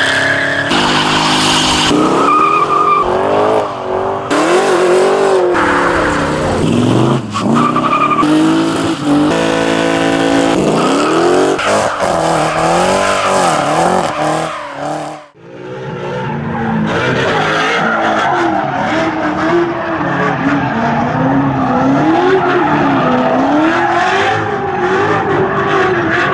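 V8 muscle cars doing burnouts: engines held high in the revs, the pitch wavering up and down, over squealing, spinning rear tyres. Several short clips follow one another, with a brief drop and cut about fifteen seconds in.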